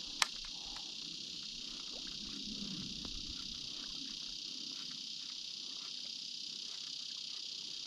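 Steady, high-pitched chorus of insects droning without a break, with a single sharp click just after the start.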